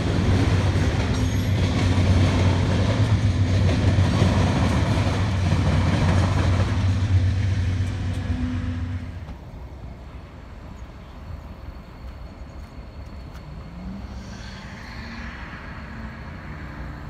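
Freight train's covered hoppers and tank cars rolling past with a steady low rumble, which falls away about nine seconds in as the last cars clear, leaving a much quieter background.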